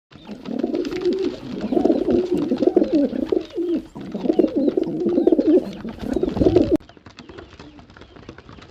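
Domestic pigeons cooing close by, one wavering low coo after another with barely a pause, cutting off abruptly about seven seconds in.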